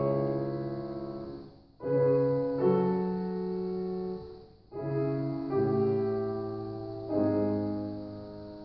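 Grand piano playing slow, loud chords, each struck and left to ring and fade, with two brief pauses between the phrases.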